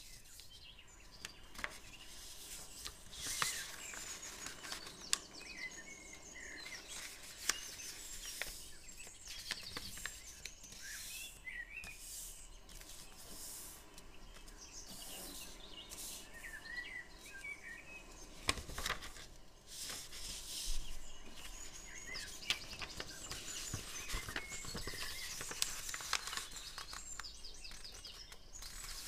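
A sheet of origami paper being handled and folded, with rustles and sharp crinkling clicks now and then as folds are pressed down. Birds chirp throughout in the background.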